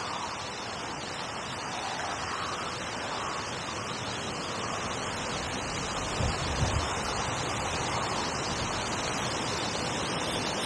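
Steady wind rushing through trees and reeds beside a lake, with a brief low rumble of wind buffeting the microphone about six seconds in.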